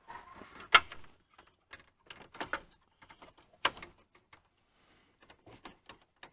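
Hands unclipping a plastic wiring connector behind a 1998 Dodge Caravan's dash panel: scattered plastic clicks and rustling, with a sharp click under a second in and another near four seconds in.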